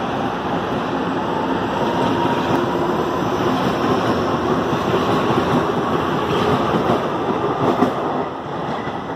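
Electric commuter train running close past at speed: a steady rumble of wheels on rail with a faint motor whine that rises in the first few seconds. The noise drops away near the end.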